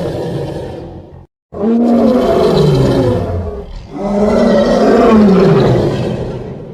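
Big-cat roars played back to back. The tail of one roar dies away about a second in, and after a brief gap two more long roars follow, each falling in pitch.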